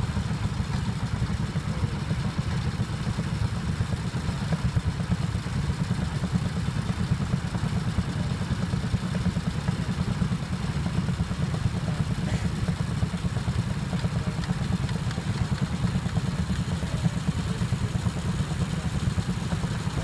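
Engine of a small two-wheeled walk-behind tractor running steadily under load as it pulls a plough through the soil, a low, fast, even engine note.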